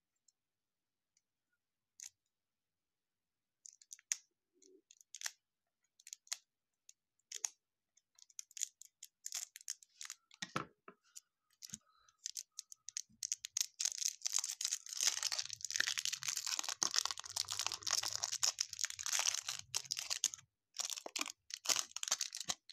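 Clear cellophane wrapping being cut with scissors and peeled off a stack of trading cards: scattered snips and clicks at first, then several seconds of dense crinkling, with a few more crackles near the end.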